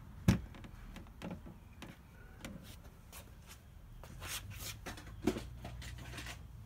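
Handling and movement noise: a sharp click shortly after the start, a few soft knocks, and a stretch of rustling near the middle.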